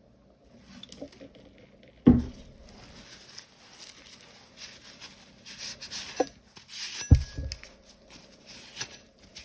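3D-printed plastic support material being picked and pried out of keycap stem cavities: scratchy scraping and small clicks, with two dull knocks, one about two seconds in and one about seven seconds in.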